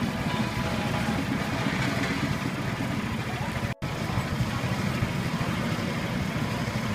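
Steady street ambience: a low traffic hum with faint voices, broken by a split-second gap of silence about halfway through.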